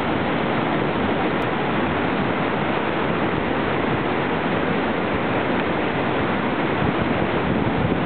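Waterfall pouring into its plunge pool in rainy-season flow: a loud, steady rush of falling water and spray without a break.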